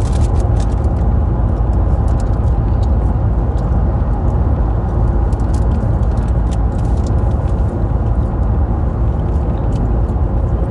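Steady low rumble of a car running, heard from inside the cabin, with faint scattered ticks.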